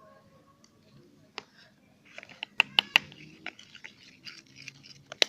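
A spoon clicking and tapping against a container while slime mixture is stirred. The clicks start in earnest about two seconds in and come in quick, irregular runs.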